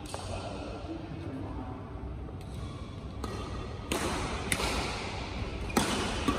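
Badminton rackets striking shuttlecocks, a few sharp hits in the second half, echoing in a large indoor hall.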